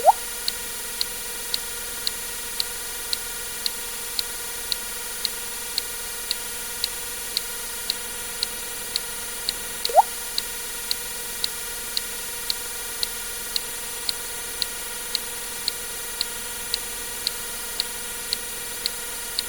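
Water-drip sound effect, a short rising plink, heard twice: at the start and about ten seconds in. Under it runs a steady ticking about twice a second over a constant electronic hum.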